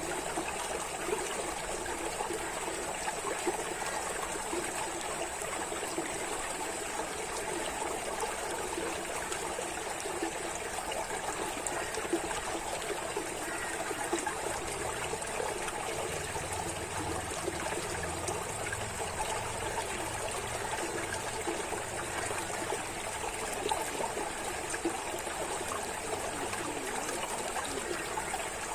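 Running water trickling and splashing steadily, with no let-up.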